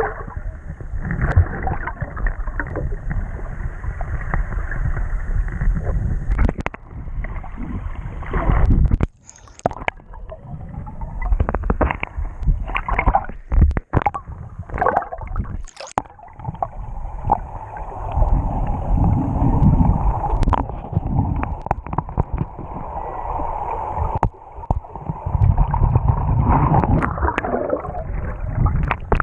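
Muffled underwater sloshing, gurgling and bubbling picked up by an action camera in its waterproof housing as it moves just under the surface, with scattered sharp knocks and splashes from the housing being handled in the water.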